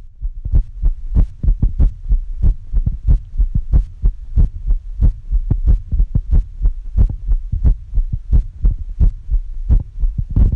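A human heartbeat picked up through the chest by a phone held against the skin: a steady, regular train of short thumps, about one and a half beats a second, over a low hum.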